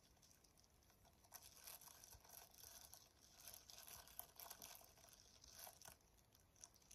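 Faint crinkling and rustling of a clear plastic bag as a wrapped package is handled and turned over, coming in irregular crackles from about a second in until near the end.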